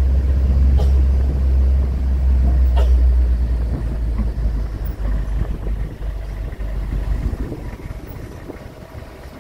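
Tourist road train rolling along a street, a steady low rumble of engine and running gear with a couple of light knocks. The rumble fades over the last few seconds as the train slows to a stop.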